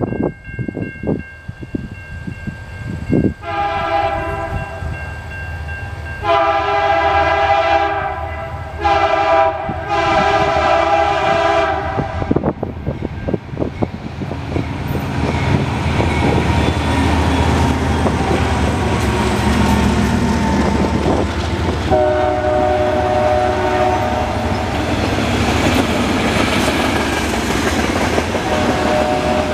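A freight train's diesel-electric locomotive air horn blows several chord blasts, long, long, short, long, the grade-crossing signal. About 14 s in the locomotives rumble past, and the horn sounds once more a little later. Near the end the freight cars clatter over the rail joints.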